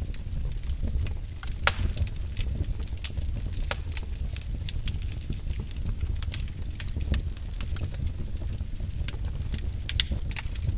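Wood fire burning in a fireplace: irregular sharp crackles and pops over a steady low rumble of the flames, with a louder pop about two seconds in and another near the end.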